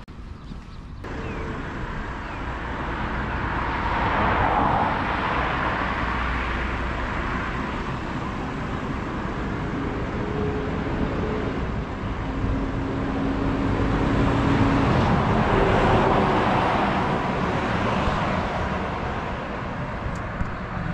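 Road traffic on a city street: cars passing, their tyre and engine noise swelling and fading twice over a steady hum.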